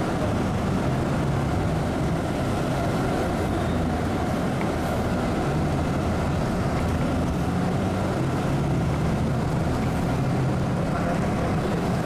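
Steady engine and road rumble of a moving road vehicle, heard from inside while it drives along a street.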